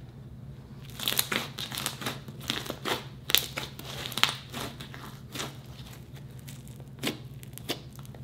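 Brown glittery slime being squeezed and pressed by hand, crackling and popping: a dense run of sharp pops from about a second in, thinning to a few single pops near the end. A steady low hum runs underneath.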